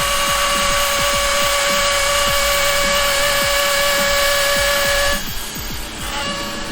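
Harmar SL350 outdoor stair lift's drive motor running with a steady whine as the lift travels along its track, cutting off about five seconds in. A light, even ticking runs underneath.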